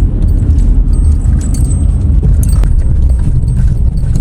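Motorcycle on the move: a heavy, steady rumble of wind buffeting the rider's microphone over the running engine, with faint scattered clicks.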